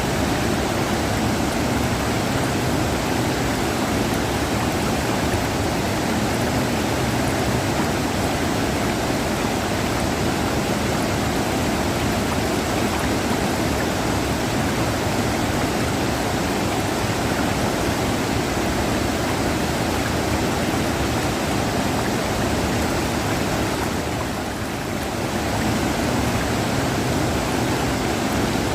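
River water rushing in a steady, even wash, dipping a little softer for a moment near the end.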